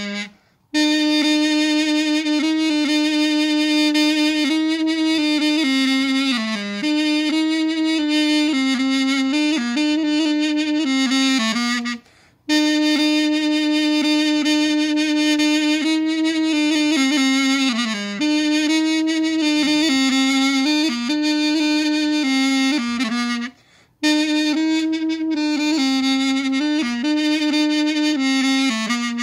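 Mey (balaban), a wooden double-reed pipe, played solo: a slow melody of long held notes with ornaments and downward slides between them. The melody breaks off for a short breath three times: right at the start, about twelve seconds in, and again near the end.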